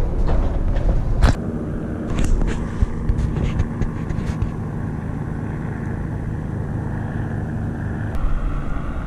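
Police helicopter circling, its rotors a steady low drone. A few sharp clicks and knocks in the first few seconds.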